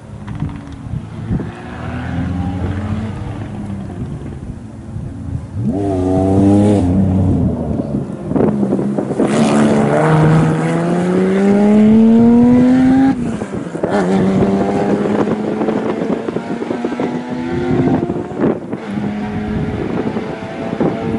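Rally car engine accelerating hard through the gears as the car passes, the note climbing in long pulls and dropping sharply at each upshift, about two-thirds of the way in and again near the end, with quick revs just before. Wind buffets the microphone throughout.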